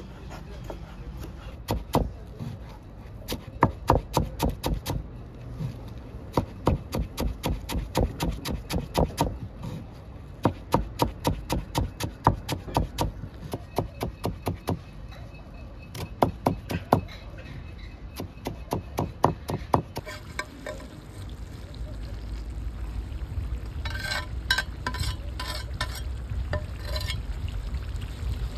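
Kitchen knife chopping on a plastic cutting board: runs of sharp knocks, about four a second, as tomatoes are diced and then herbs minced. About two-thirds of the way through this gives way to a steady low rumble with a few clusters of clicks.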